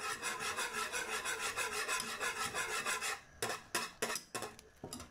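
Wire whisk stirring a milk-and-sugar mixture in a pot as it cooks down into sweetened condensed milk, the wires rubbing against the pan. Rapid, even strokes for about three seconds, then a few slower, separate strokes.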